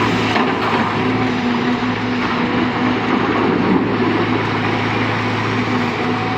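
Heavy diesel construction machinery running steadily: a constant low engine hum with a rougher, noisy layer above it.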